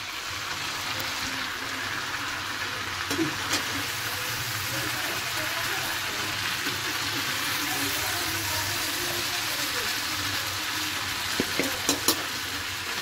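A steady hissing noise, with a few light clicks about three seconds in and again near the end.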